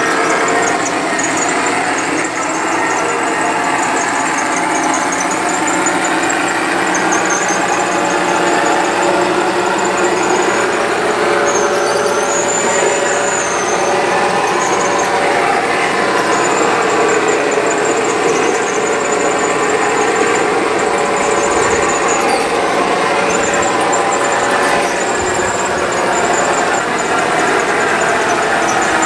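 G scale model trains running on elevated metal track, giving off a steady, loud whine and squeal of several overlapping tones from their wheels and drives.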